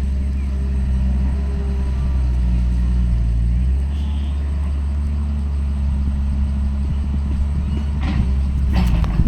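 Heavy diesel engine of an earthmoving machine running steadily under work, its note shifting about four seconds in, with a few sharp metallic clanks near the end.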